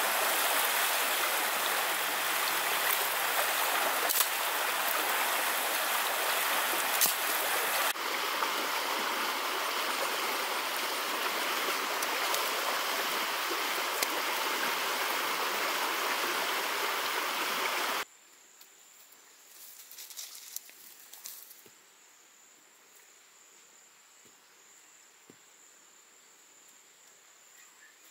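Shallow stream water rushing steadily over rocks. About two-thirds of the way through it cuts off abruptly, leaving a faint steady high insect buzz and a brief rustle of grass.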